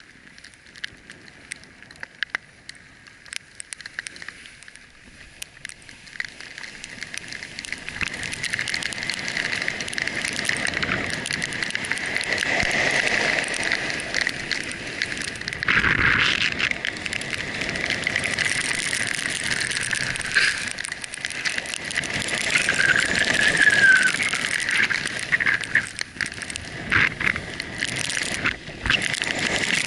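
Sliding downhill over fresh snow: a steady hiss of snow with wind rushing on the microphone, growing louder as speed builds after about six seconds. Scattered clicks and knocks come in the first few seconds.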